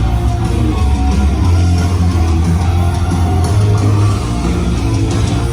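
Loud rock music with distorted electric guitar and a heavy, held bass line.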